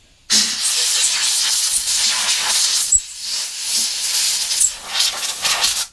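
Compressed-air blow gun blasting air over a lawnmower engine's carburettor, a loud steady hiss that starts suddenly, breaks off for a moment about three seconds in, and then runs on until it cuts off. It is blowing loose dirt, softened with old fuel, off the carburettor so none gets into the fuel system.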